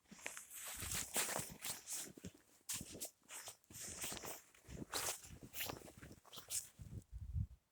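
Footsteps crunching through deep fresh snow, a series of irregularly spaced steps.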